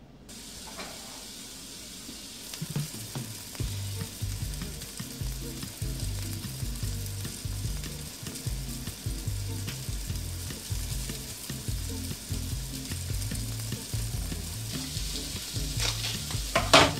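Deer sausage sizzling steadily as it fries in a pan on the stove, with a few sharp knocks of a utensil or pan near the end.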